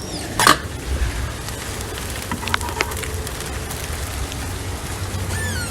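Sleet and rain pattering steadily, with a few sharp ticks in the first few seconds and a brief falling chirp near the end.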